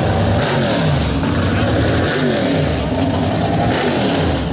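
Chevrolet S-10 drag truck's engine revved in short blips about once a second, its pitch rising and falling back each time while the truck is staged before a grudge race.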